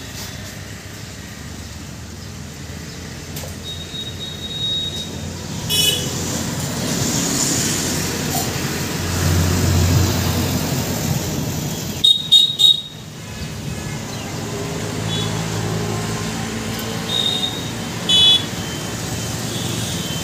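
Road traffic passing on a highway, a steady engine and tyre rumble that swells as a vehicle goes by near the middle, with several short horn toots; the loudest is a quick series of honks a little past the middle.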